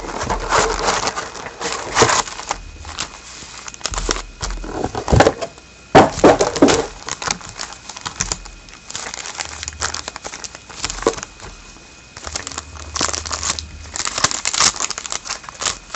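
Plastic wrapping crinkling and tearing in irregular bursts, with a few sharper clicks, as a sealed box of trading cards is opened and unwrapped.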